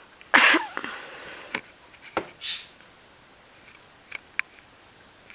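A short scraping rustle about half a second in, then a few scattered sharp clicks and taps of a cat's paw and claws on a refrigerator door and its magnets.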